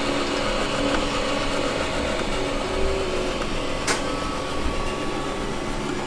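3D printer stepper motors whirring, a steady hum of tones that shift pitch in short steps as the print head and bed move, with a single sharp click about four seconds in.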